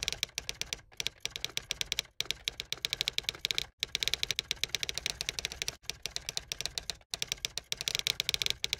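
Typing sound effect: rapid keystroke clicks, several a second, in runs broken by brief pauses every second or two. The clicks stop abruptly near the end.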